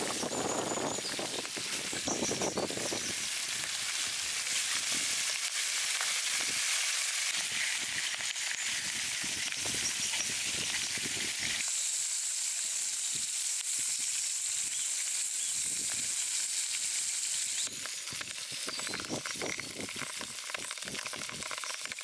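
Pieces of kutum fish sizzling as they fry in hot oil in a black pan: a steady, dense hiss whose tone shifts twice.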